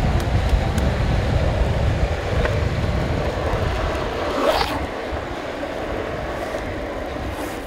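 Wind rushing over the microphone and the rumble of longboard wheels rolling fast on asphalt, fading gradually. A brief squeal sweeps up and back down about four and a half seconds in.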